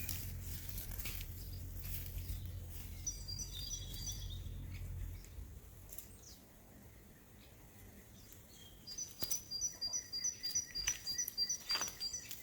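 A small bird calling a rapid series of high, evenly repeated notes, about three a second, through the last few seconds, with a shorter run of the same notes about three seconds in. A low rumble sits under the first five seconds and then fades.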